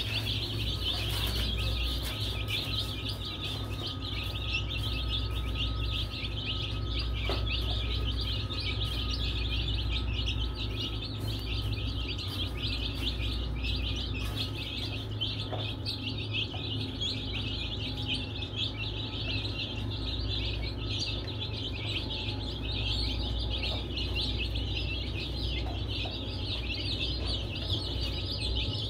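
A group of baby chicks peeping without pause, many high chirps overlapping, over a steady low hum.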